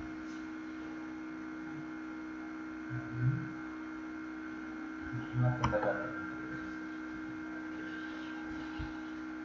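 Steady electrical mains hum, with a brief low bump about three seconds in and a short cluster of low thumps around five and a half seconds.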